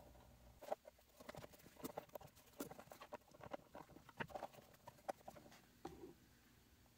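Faint, irregular small clicks and taps of a 3D-printed plastic hinge part and a metal hinge being handled and pushed together, by hand and with pliers.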